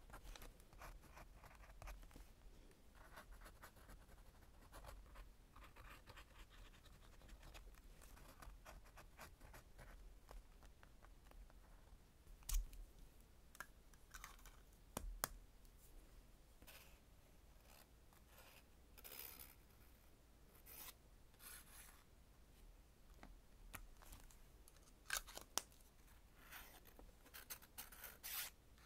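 Faint scratching of a Lamy fountain pen's steel nib writing on paper, then two sharp clicks about halfway through as the pen's plastic cap is handled, followed by soft scratchy rustles and small taps of paper stickers being handled with tweezers.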